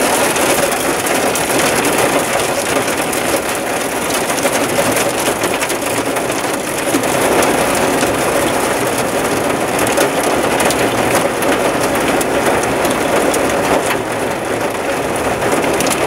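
Heavy rain on the roof of a camper van, heard from inside: a steady, dense patter of drops that does not let up.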